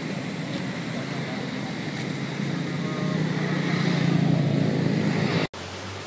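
A motor vehicle's engine running close by over outdoor traffic noise, growing louder from about two and a half seconds in. It cuts off abruptly near the end, leaving a steady hiss.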